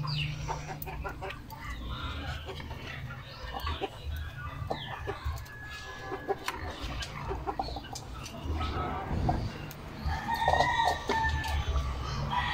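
Chickens clucking, with a rooster crowing about ten seconds in. A metal ladle stirring in a wok gives a few scattered knocks.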